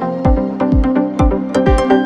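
Electronic dance background music: a steady kick drum about twice a second with hi-hat ticks over sustained synth chords.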